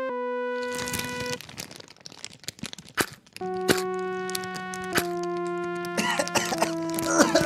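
Cartoon soundtrack. A held synth note fades into a quiet stretch of crackling and small clicks as a match burns. A low held chord then comes in, and from about six seconds a child coughs over it, choking on the smoke.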